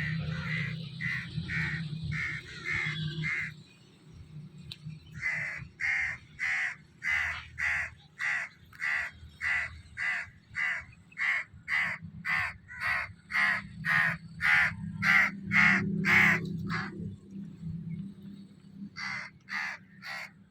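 A crow-like bird cawing in long, evenly spaced runs of harsh calls, about two a second, with a break about four seconds in and another shorter one near the end. A faint low hum lies underneath.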